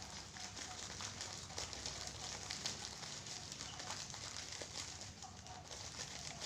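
Chicken sizzling in a pan, a dense irregular crackle over a low steady hum.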